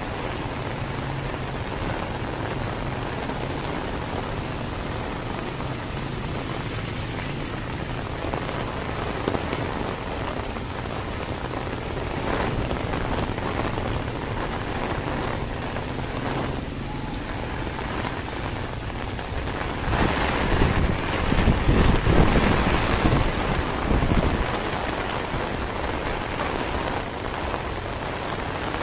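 Heavy rain falling and splashing on the street, a steady hiss. About twenty seconds in a louder low rumble swells up for a few seconds and fades.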